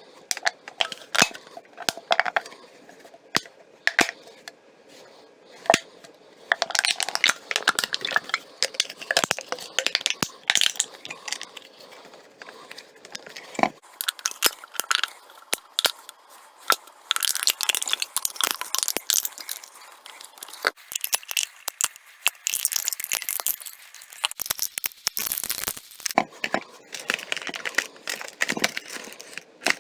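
Plastic water bottle and aluminium drink can being squeezed and crushed by hand, giving irregular crinkling and crackling with sharp cracks. The crackling comes in uneven spells with short pauses between them.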